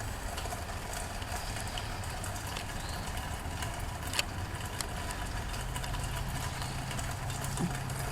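Steady rain falling, with scattered drops tapping and one sharper tap about four seconds in, over a low steady rumble.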